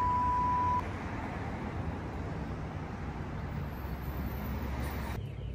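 A short steady beep lasting under a second, then city street ambience: a steady rumble of road traffic.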